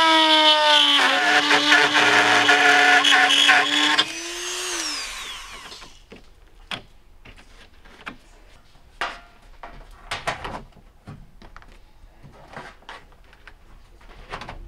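Power drill running at a steady high pitch for about four seconds, then winding down. After that, scattered light clicks and knocks as a metal panel is handled and fitted against a car's rear door.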